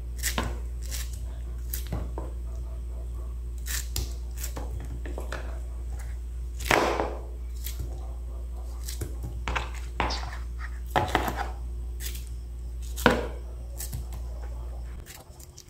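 A knife chopping ripe pineapple into small pieces: irregular sharp strokes of the blade, roughly one or two a second. A steady low hum runs underneath and stops shortly before the end.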